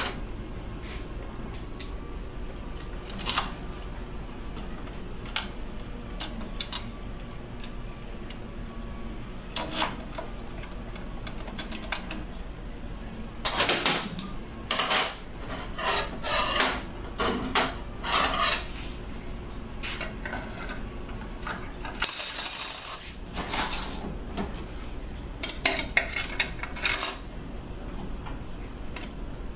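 Metal transmission parts of a Mercedes 722.9 automatic gearbox (clutch plates and rings) clinking and clanking as they are handled on a steel bench and fitted into the aluminium case, in irregular knocks, with a ringing metallic clink about 22 seconds in.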